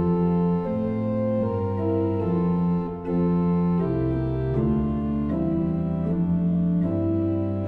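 Organ playing slow, held chords that change about once a second.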